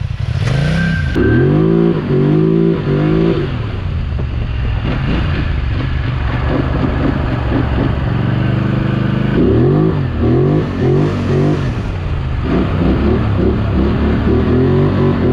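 Polaris Scrambler XP 1000 ATV's twin-cylinder engine revving up and dropping back again and again as it is ridden hard, the throttle surging in a string of rises and falls.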